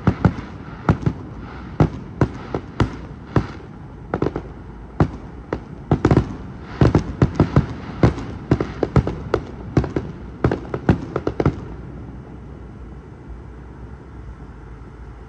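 Fireworks going off in a quick, irregular run of sharp bangs, about two or three a second, that stops about twelve seconds in. A steady low rumble carries on after the bangs end.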